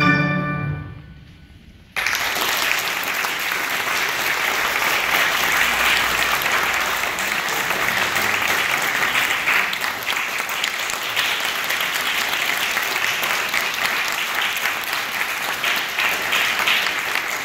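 The last chord of a cello and piano piece fades out; then, about two seconds in, the audience starts applauding and keeps clapping steadily.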